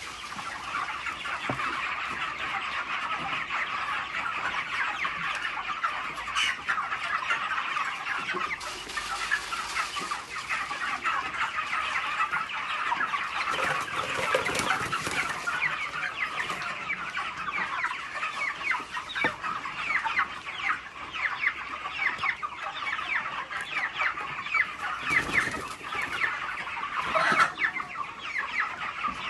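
Large flock of chickens in a poultry house clucking continuously, a dense chatter of many overlapping short calls, with a knock or click now and then.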